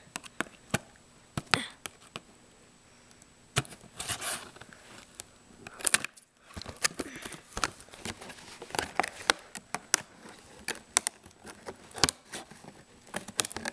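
Scissors snipping and clicking as they cut open a cardboard toy box, with irregular sharp clicks and short bursts of crinkling plastic packaging.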